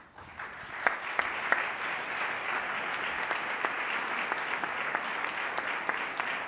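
Audience applauding. The clapping swells in the first half-second, then holds steady, with a few sharp single claps standing out.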